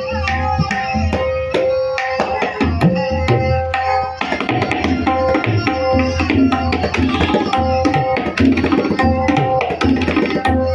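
A tabla played in a fast, continuous pattern: the right-hand drum rings at one steady tuned pitch over deep bass strokes from the left-hand drum, and the strokes grow denser about four seconds in. It is a sound check of a newly made tabla's tone and tuning.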